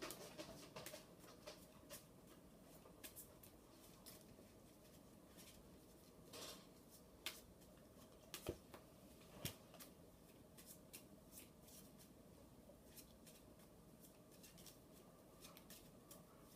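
Faint, scattered clicks and snaps of playing cards being handled and shuffled, over a low steady hum.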